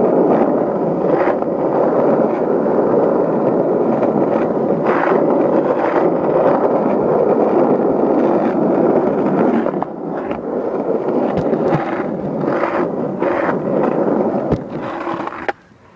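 Wheels rolling over rough pavement, a steady grinding scrape with a few sharp knocks, which stops abruptly near the end.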